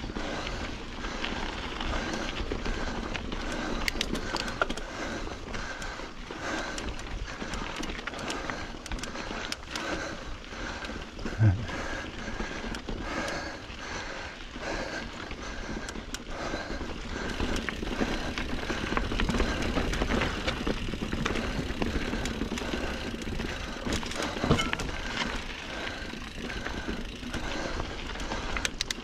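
Norco Sight A2 full-suspension mountain bike rolling over a dirt and rock trail: tyre noise with a continual rattle of small clicks from the bike, and one sharp knock about eleven seconds in.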